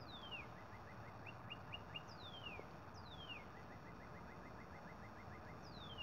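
Northern cardinal singing, faint: four slurred whistles each dropping steeply in pitch, with runs of short quick chirps between them, the longest run coming fast at about seven a second.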